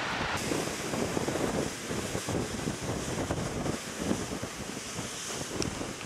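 Strong gusty wind buffeting the microphone, over the steady rush of surf breaking on the beach.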